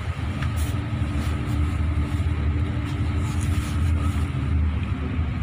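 Intercity coach bus engine running with a low, steady rumble, heard from inside the cabin at the front near the driver.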